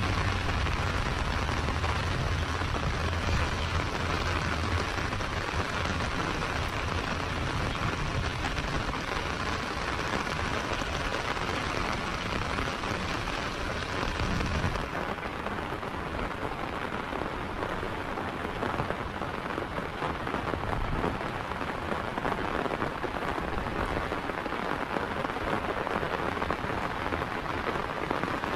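Heavy rain falling steadily on paving and vegetation. A low rumble runs under it in the first half and stops abruptly about halfway through.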